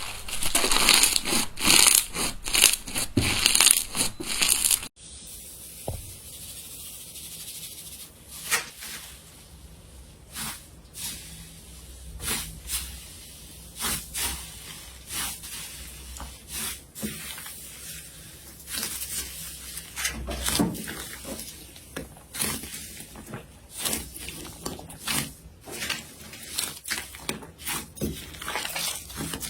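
Slime being squeezed and pressed by hand, giving dense crackling clicks for the first five seconds. The sound cuts off abruptly, then quieter, scattered sticky pops and clicks follow.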